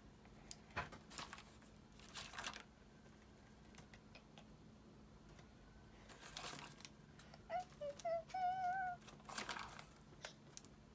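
Twigs rustling and scraping as they are handled and pushed into a tub of damp soil and gravel, in several short bursts with a few light clicks. About eight seconds in comes a brief wavering hum from a voice, the loudest sound.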